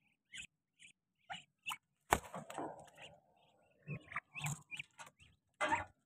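Muscovy ducks giving short, breathy hisses in scattered bursts, the loudest and longest about two seconds in.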